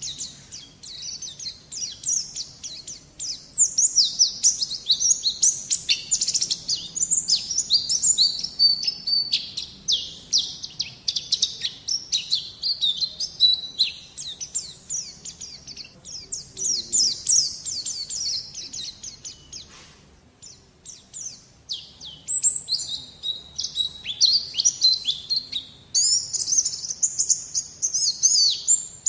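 White-eye (pleci) song: a fast, continuous stream of high twittering chirps, with a brief pause about two-thirds of the way through.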